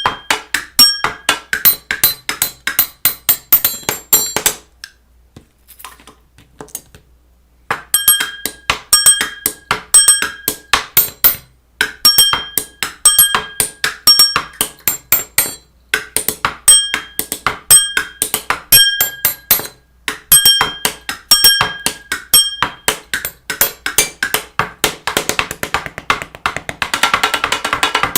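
Rapid percussive clicks and knocks in a busy rhythm, many with short pitched rings. They stop for about three seconds around five seconds in, and a hiss comes in under them near the end.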